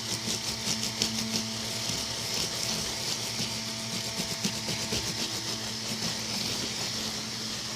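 Scrubbing a wet carpet spot with a cotton pad: quick rubbing strokes, several a second, that die away after about five seconds, over a steady low hum.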